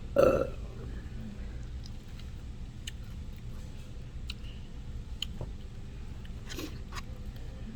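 A person chewing and biting food close to the microphone, with small wet mouth clicks and smacks scattered through, after a brief louder burst just after the start; a steady low hum runs underneath.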